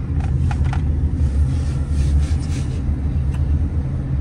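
Steady low rumble of a moving car heard from inside the cabin, with a few faint clicks in the first second.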